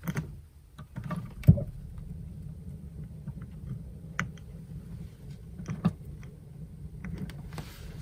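Dometic RM 5380 absorption fridge being lit on gas: a few sharp clicks from its control knob and ignition button, the loudest about one and a half seconds in. Under them runs a steady low rumble from the gas burner, the Bunsen-burner-like noise the owner finds too loud.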